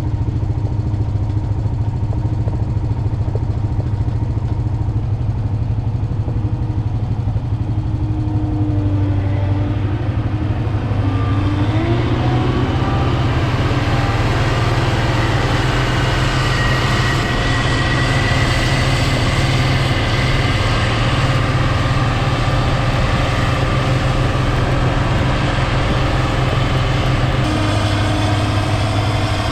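Diesel farm machine's engine running steadily as it is driven, a deep even drone. About twelve seconds in, a higher hiss and faint whine join in and stay.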